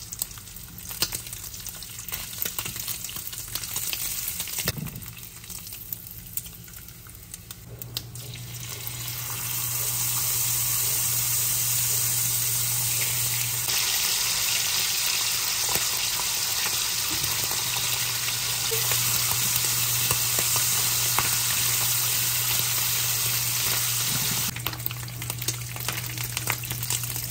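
Strips of beef bacon sizzling and crackling in their rendered fat in a nonstick sauté pan over medium-high heat. The sizzle grows louder about nine seconds in and holds as a steady hiss. Near the end, tongs turning the strips add a few sharp clicks.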